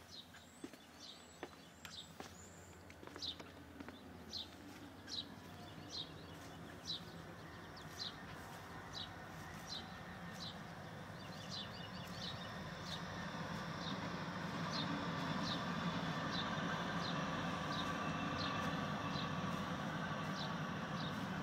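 A bird's short, high call repeated over and over, about once a second and then quicker. From about halfway a vehicle's engine and tyre noise grows louder and stays, covering the calls near the end.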